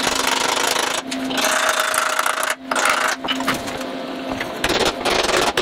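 Wooden mallet tapping rapidly on a clamped sheet of annealed aluminum to bend it along the bend line, in quick runs of blows with short breaks.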